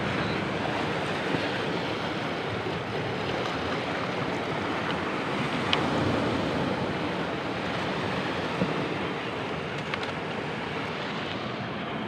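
Sea water washing and lapping among shoreline boulders, a steady rushing wash of small waves.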